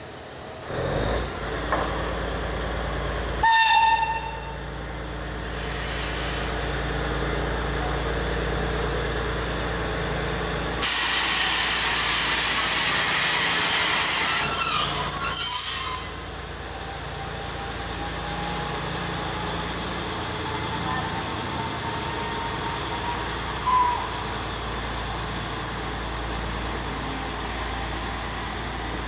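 Trenitalia regional train arriving slowly at a platform over a steady low rumble. A short loud horn note sounds about three and a half seconds in. A loud hiss of air follows from about eleven to sixteen seconds, with a thin high squeal near its end as the train slows to a stop.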